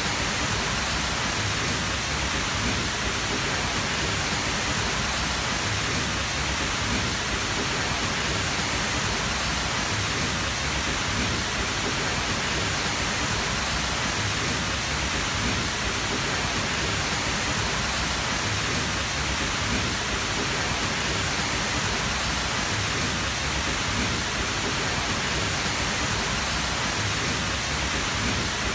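Tall waterfall, a large volume of water falling and rushing in a steady, unbroken roar.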